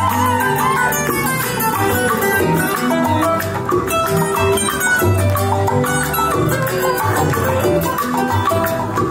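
Salsa music playing: an instrumental stretch with a strong bass line, steady percussion and melodic instruments, with no singing.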